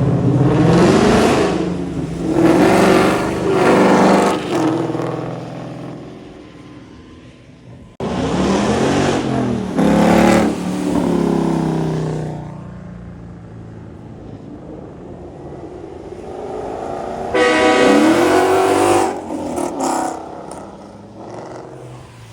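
Three cars accelerating hard away from a car meet one after another, each engine revving up through the gears. Quieter engine and traffic noise lies in the gaps between them.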